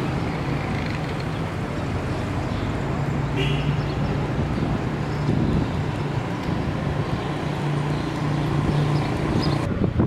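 Street ambience with traffic noise: a motor vehicle's engine running with a steady low hum under a constant wash of town noise.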